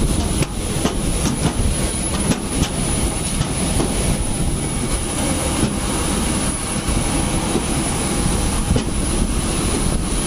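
Steady loud rumble and hiss of jet aircraft on an airport apron, with scattered light clanks of footsteps on a metal boarding stairway.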